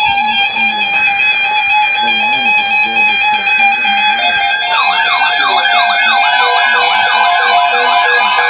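Several NOAA weather radios sounding their alert alarms together for a severe thunderstorm watch. Loud steady tones are joined, about five seconds in, by a fast warbling siren-like alarm.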